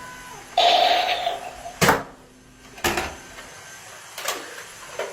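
An electronic target for Nerf foam darts being shot at: a short electronic sound effect from the target lasts under a second, followed by several sharp plastic clacks of darts hitting and the target flaps flipping, the loudest about two seconds in.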